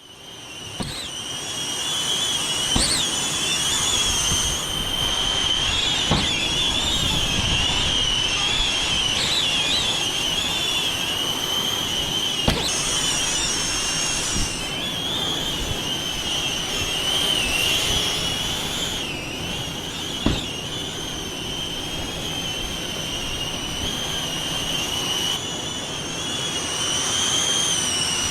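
Small caged FPV drone (Xpert Mini O3) flying, its motors and propellers whining high, the pitch wavering up and down with the throttle, over low wind rumble. Several sharp knocks break in along the way.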